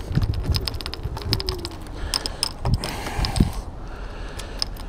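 Rapid, irregular mechanical clicking and rattling in quick runs, with a few dull knocks.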